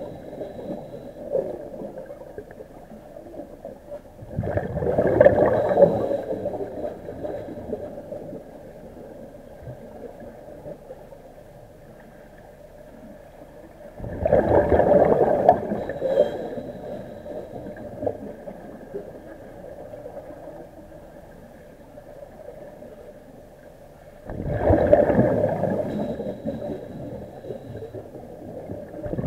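Underwater sound of a diver breathing on an IDA-59M rebreather: a gurgling burst of bubbles about every ten seconds, three times, with a faint steady high tone between.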